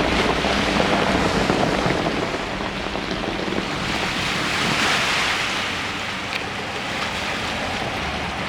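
Lake waves washing against the shore, with a swell of surf about halfway through, and wind buffeting the microphone.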